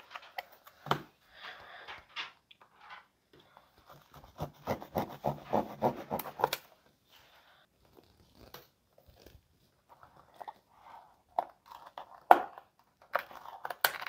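Mouse retail packaging being torn and opened by hand, with the plastic inside crinkling. Irregular tearing and rustling, busiest about four to six and a half seconds in, with a few sharp snaps.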